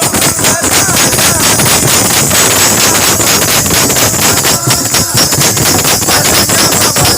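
Loud music with a fast, steady beat.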